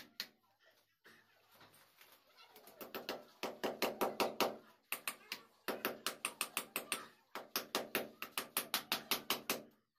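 Small hammer tapping quickly and repeatedly against a brick wall while a PVC conduit pipe is fixed into its chase, in three runs of about six or seven taps a second, with short pauses between them.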